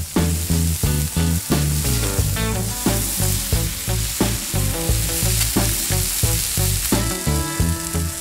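Sausage patties and eggs sizzling on a Camp Chef flat-top griddle, under background music with a steady beat.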